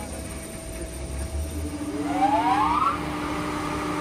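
Electric motor of a stone block-cutting machine humming, then a rising whine about halfway through as it spins up, levelling off into a steady running hum.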